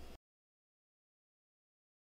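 Near silence: a moment of faint room tone, then the sound cuts out completely.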